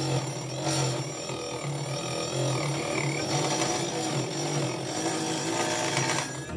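Small homemade table saw running, its circular blade cutting into a thin strip of wood pushed through by hand. The motor's hum wavers and dips as the blade bites, over the rasp of the cut.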